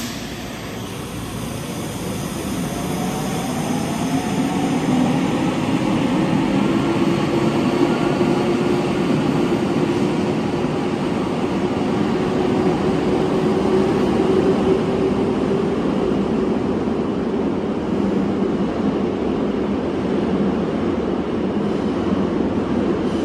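Subway train pulling out of an underground station, its electric traction motors giving a whine that slowly rises in pitch as it accelerates. Under the whine runs the rumble of the wheels on the rails, which builds over the first few seconds and then holds steady as the train runs off into the tunnel.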